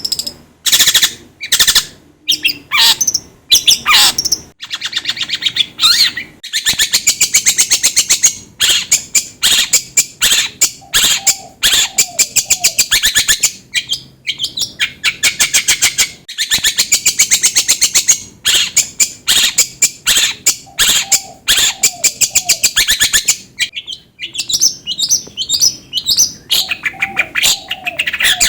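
Long-tailed shrike (cendet) song played as a lure: loud, rapid chattering trills of sharp repeated notes, delivered in phrases of a few seconds with brief pauses between them, with a few short lower warbles mixed in.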